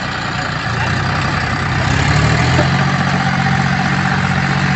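John Deere 5105 tractor's three-cylinder diesel engine running as the tractor drives through deep mud. It grows louder about two seconds in, then holds a steady note.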